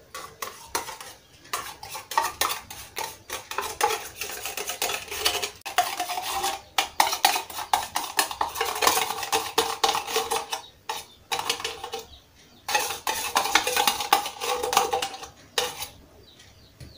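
A metal wire whisk scrapes and knocks inside open tin cans of condensed milk to empty them into a stainless steel bowl. Rapid metallic clinks and scrapes carry a ringing tone from the cans. They pause briefly twice and stop about a second before the end.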